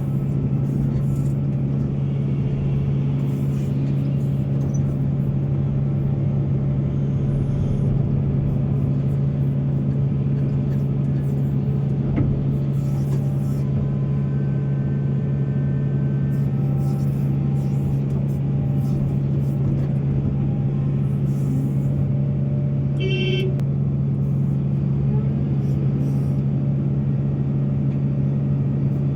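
Heavy diesel engine of coal-mine earthmoving machinery running steadily with a deep, unchanging hum. A short higher-pitched tone sounds once, a little before the end.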